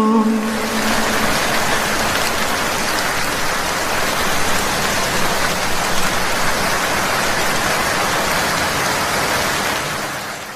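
Steady rain, an even hiss of falling rain with no distinct drops standing out, fading out near the end.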